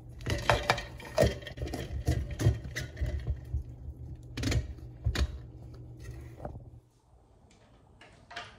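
Irregular clicks and knocks of things being handled, over a low steady hum that cuts off suddenly about seven seconds in.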